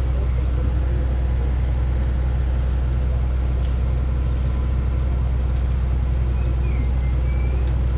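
A large engine running steadily at a constant low hum, with a couple of faint clicks about halfway through.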